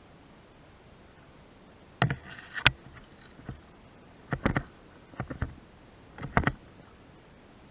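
A series of irregular knocks and clunks in about five short clusters, like hard objects bumping against each other.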